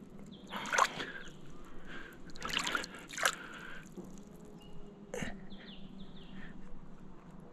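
Water splashing and sloshing as hands reach into shallow river water to pull wild oysters off the bottom, with several sharper splashes about one, three and five seconds in.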